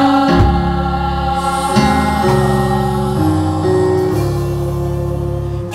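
Gospel choir singing a worship song, led by a male voice on a microphone, over held low notes and chords that change about once a second.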